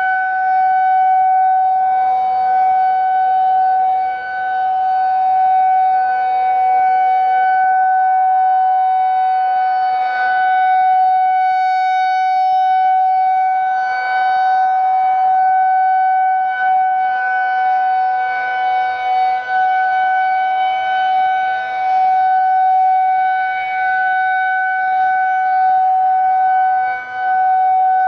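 Federal Signal 2001-130 rotating outdoor warning siren sounding a steady single-pitched tone during its weekly test. The loudness swells and dips a little as the horn turns.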